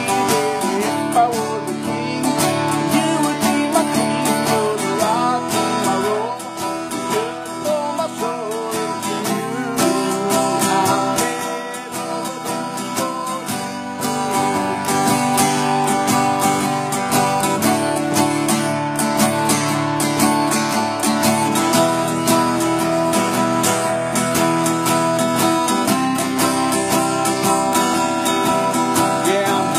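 Acoustic guitar strummed steadily in a country song, with a wavering melody line over the chords.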